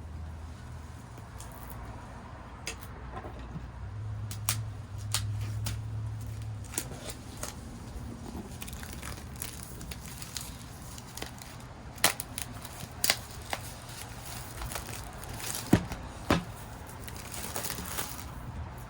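Drone box packaging being handled and opened by hand: crinkling and rustling with scattered clicks and snaps, the sharpest few in the second half.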